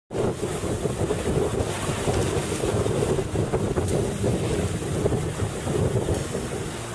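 Wind buffeting the microphone over water rushing along the hull of a Sadler 34 sailing yacht under sail: a steady, rough rush with no engine.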